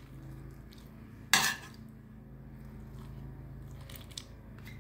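A metal spoon clinks sharply once against a stainless steel pot about a second in, with faint taps of the spoon packing meat-and-rice filling into an artichoke. A low steady hum runs underneath.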